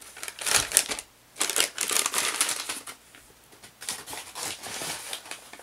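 A bag crinkling and rustling as it is handled, in several stretches with short pauses: a soap bar being put back into its bag and the next one taken out.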